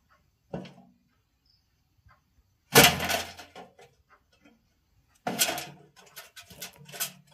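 Metal wire-mesh cage trap clanking and rattling with a trapped mouse inside. A single knock comes about half a second in and a loud ringing bang a little under three seconds in, then a quick run of rattling knocks from about five seconds on.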